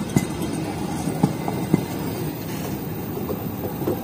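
Passenger train coaches rolling past at close range: a steady low rumble of steel wheels on the rails, with a few sharp clacks.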